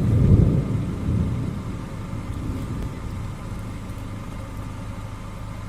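Distant thunder from a lightning strike about 4 to 5 km away, a low rumble that fades away over a few seconds. Under it runs the steady low hum of a car engine idling.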